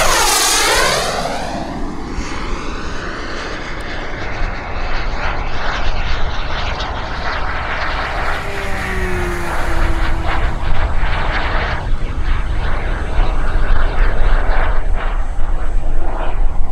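The EvoJet 220 turbine of a BVM Renegade RC model jet whines past in a low pass, its pitch falling steeply as it goes by. It then runs on as a steadier, rushing jet noise while the plane flies farther off.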